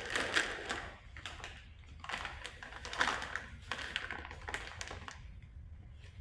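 Paper and plastic packaging being handled: rustling with a run of light taps and clicks.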